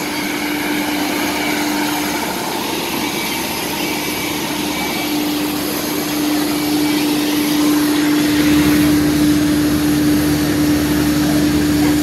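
Steady loud machinery noise beside a parked Airbus A330-200 on the apron: a constant humming whine over a broad rush, which grows louder and gains a deeper hum about eight seconds in.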